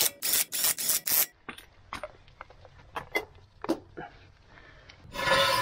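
Cordless impact wrench spinning lug nuts onto a wheel in five or six short bursts, followed by a few light metallic clicks as the nuts are handled. Near the end a louder, steady noise with a whine sets in.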